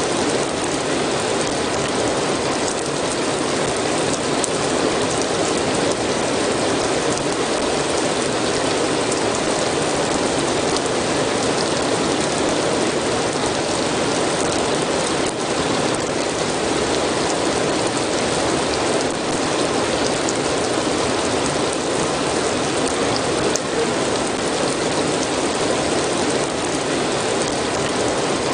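Steady rain falling: a dense, even hiss of rain with many small drop ticks throughout, unchanging in level.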